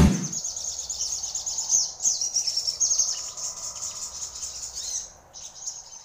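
Caged sogok ontong songbird singing a fast, dense string of high-pitched chirps and twitters, growing weaker near the end.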